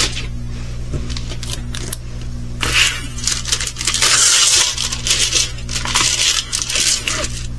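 Crinkly packaging of a diamond painting kit rustling and crackling as it is handled, louder from about two and a half seconds in.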